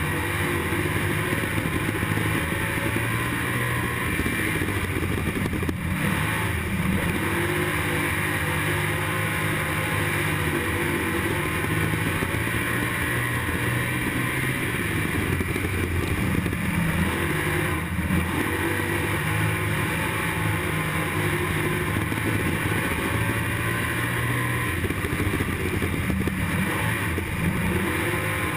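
IMCA stock car's V8 engine at full race load, heard from inside the car's cockpit, its pitch rising and falling as the driver gets off and back on the throttle through the turns of a dirt oval.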